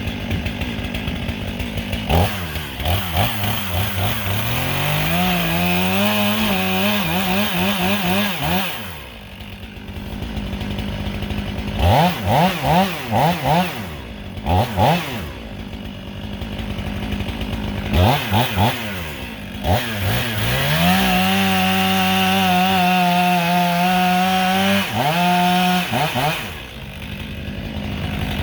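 Chainsaw engine revved in quick throttle blips, then held at high revs twice for several seconds at a time, dropping back to idle in between.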